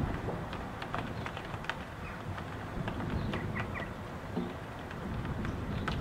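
Wind and rain heard from inside a house: a steady low rumble of gusting wind with scattered sharp taps of raindrops, and a few short high chirps about halfway through.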